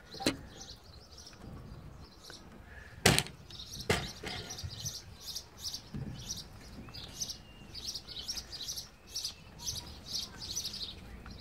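Guinea pigs munching fresh leafy greens: quick, crisp chewing, about two to three bites a second. There are three sharp knocks, near the start and about three and four seconds in, the one at three seconds the loudest.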